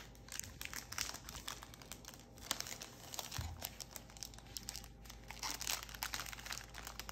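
Foil trading-card pack wrapper crinkling and crackling in irregular bursts as it is handled and opened.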